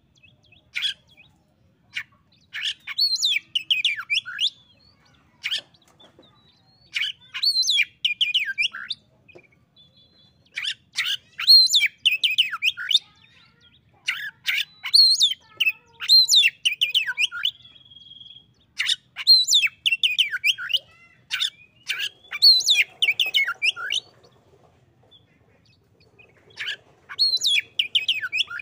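Oriental magpie-robin singing: a string of short, loud phrases of rapid, sharp whistled notes, each a second or two long, repeated after brief pauses.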